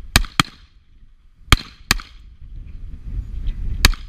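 Five revolver shots fired in quick succession: two pairs about a third of a second apart, then a single shot near the end, each with a short echo.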